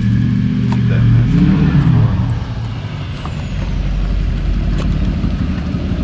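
Lifted pickup truck's engine running as it approaches and pulls in, with a brief rise and fall in engine pitch about a second and a half in, then a steady low rumble.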